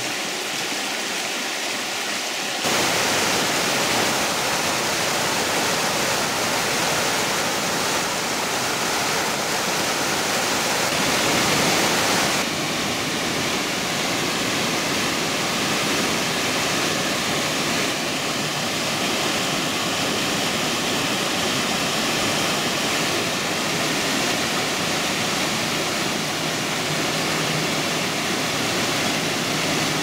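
Creek water rippling over rocks, then from about three seconds in the louder, steady rush of a small waterfall sliding down a rock slab into a pool. The rush changes slightly about twelve seconds in.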